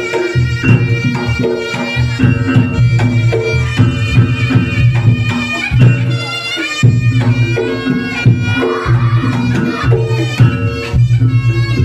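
Reog Ponorogo gamelan accompaniment: a shrill, reedy slompret (shawm) melody over kendang drums and a steady beat of gong-chime strokes.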